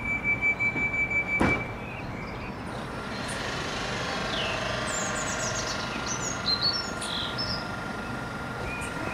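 Rapid high-pitched warning beeps, about five a second, from an electric multiple unit's doors closing, ending in a knock as the doors shut about a second and a half in. Then a steady electric hum with a faint held whine, and small birds chirping over it.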